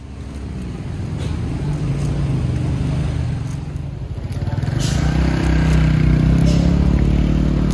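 A motor vehicle's engine running, growing louder and rising slightly in pitch over the last few seconds.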